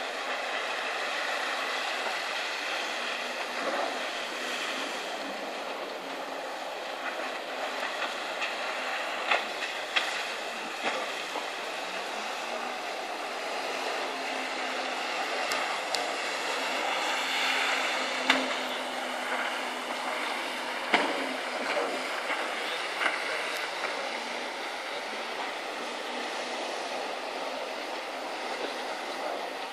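Jet ski engine running at a distance, a steady drone with a faint high whine over the wash of water. A few sharp clicks stand out in the middle.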